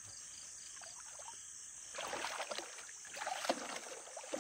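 Water splashing and dripping in irregular strokes from about two seconds in. Before that, insects chirp steadily at about four chirps a second.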